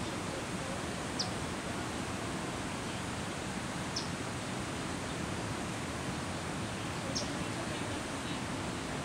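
Steady, even hiss of outdoor ambient noise, with three short high chirps about three seconds apart.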